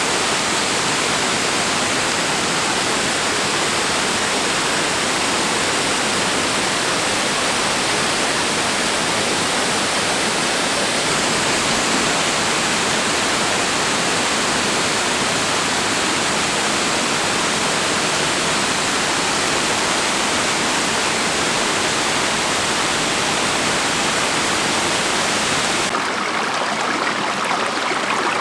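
Waterfall water rushing in a steady, dense roar. About two seconds before the end it abruptly turns duller, with less hiss.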